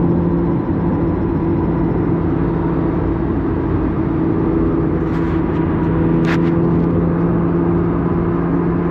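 C8 Corvette's V8 droning steadily at highway cruise, heard inside the cabin over tyre and road noise. There is a short sharp click about six seconds in.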